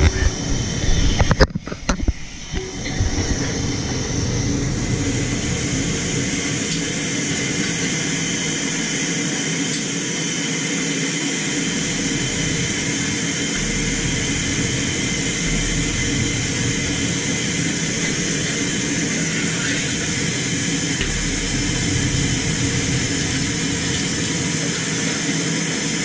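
Steady loud rush of air through a hyperbaric chamber's air system, setting in after a couple of seconds of knocks and handling noise.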